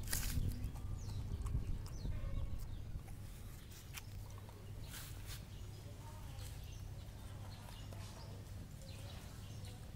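A dog eating rice from a steel bowl: chewing and mouthing the food, with a few sharp clicks, two of them close together about halfway through.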